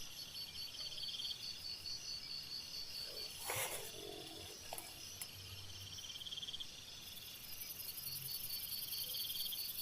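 Night insects trilling: several steady, pulsing chirps, with a higher, thinner buzz joining about seven seconds in. A short soft sound breaks in briefly about three and a half seconds in.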